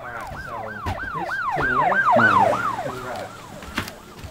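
Emergency-vehicle siren sound effect: a fast yelp rising and falling about three times a second. It grows louder to a peak about two seconds in, then fades away shortly after, like a vehicle passing by.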